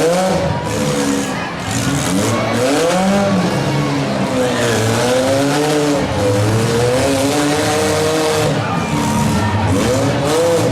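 Several six-cylinder demolition derby cars' engines revving and falling back over and over, overlapping, loud throughout.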